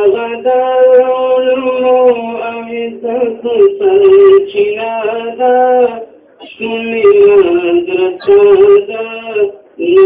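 A student's voice singing a Pashto naat, a devotional praise poem, in long melodic phrases of held, wavering notes with short breath pauses between them.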